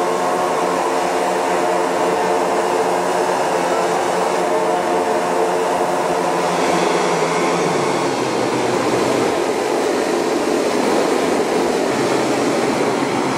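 Several small model-aircraft engines on a large radio-controlled Spruce Goose flying-boat model running together, a steady, dense multi-engine drone; about seven seconds in it turns rougher and less even.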